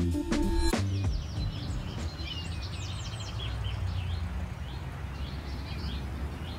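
Birds chirping and calling repeatedly over a steady low background noise; a music bed cuts out about a second in.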